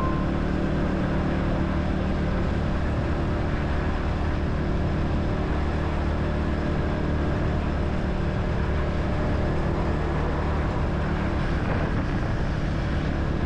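Motorcycle riding at a steady speed: an even engine hum with road and wind noise, unchanging throughout.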